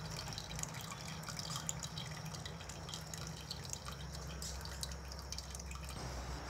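Fruit juice dripping and trickling through a small kitchen sieve into a bowl: faint, irregular drips and little splashes.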